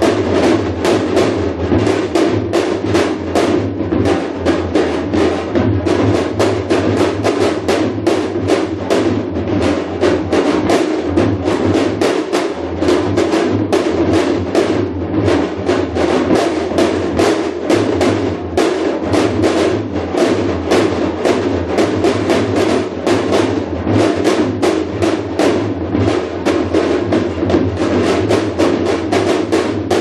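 Korean janggu (hourglass drum) played in shamanic gut style, a steady, fast stream of drum strokes with no break.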